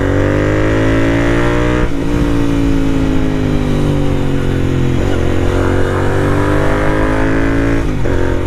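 Royal Enfield 650 parallel-twin engine under way through a Red Rooster Performance aftermarket exhaust, accelerating through the gears. The revs climb, drop briefly at a gear change about 2 s in, ease off, then climb again from about 5 s in to another change near the end.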